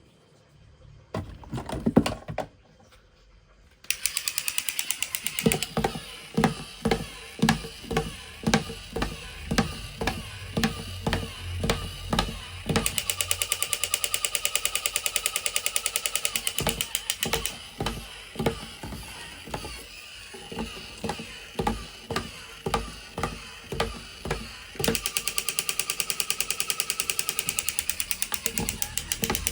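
A few knocks, then background music with a steady beat of about two strikes a second, in sections with rapid ticking and held tones.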